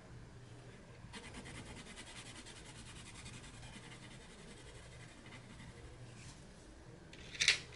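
Colored pencil with a firm, wax-based lead (Black Widow Monarch) scratching back and forth on paper in rapid, even strokes, laying down a swatch. A sharp click comes near the end.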